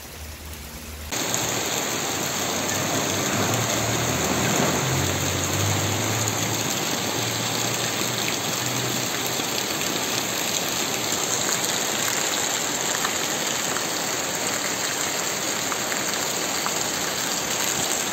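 Heavy rain pouring down with a steady, dense hiss. It is quieter for the first second, then suddenly louder as the downpour fills the sound.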